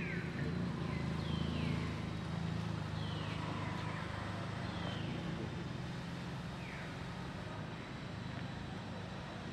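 A steady low rumble like a running engine or passing traffic, with a high call sliding down in pitch repeated about every one and a half to two seconds, fading out in the second half.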